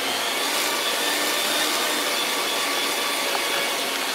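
Electric hand mixer running at a steady speed, its beaters whirring through cream cheese icing in a bowl, with a constant high motor whine.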